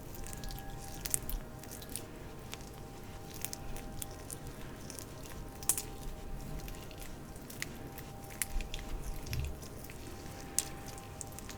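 Oily hands and fingers making scattered wet, sticky clicks and squishes, irregular and close up, over a faint low hiss.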